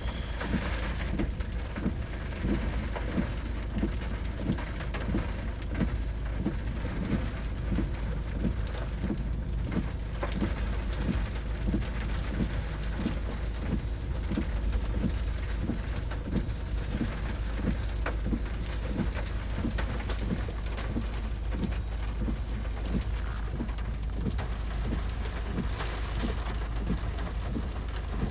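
Steady rain falling during a thunderstorm, over a continuous low rumble. A soft regular tapping repeats about one and a half to two times a second.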